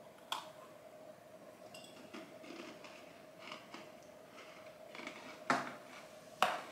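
Eating and food-handling sounds: scattered sharp clicks and short crunches, with two louder crisp snaps near the end, over a faint steady hum.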